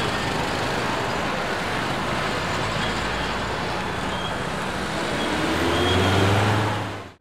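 Steady street traffic noise with motor vehicles passing. Near the end one vehicle's engine grows louder and rises in pitch, then the sound cuts off abruptly.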